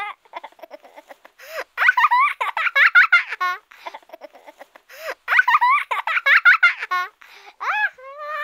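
Very high-pitched, chipmunk-like voices laughing and chattering in quick bursts.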